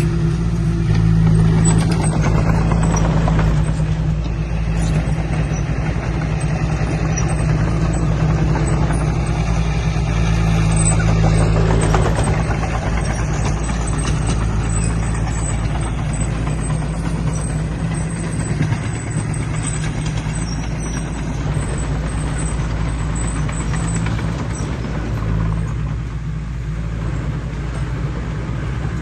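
Heavy diesel earthmoving machinery running steadily at a constant engine note.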